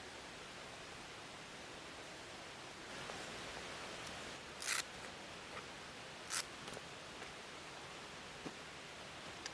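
Steady hiss of rain and a mountain stream, with two short, sharp rustling sounds about halfway through and a few faint clicks.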